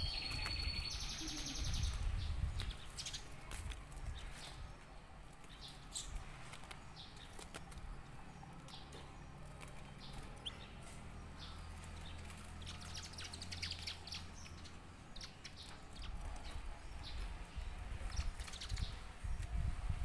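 Silver canary giving scattered short, high chirps and calls, opening with a brief high trill, over a low background rumble.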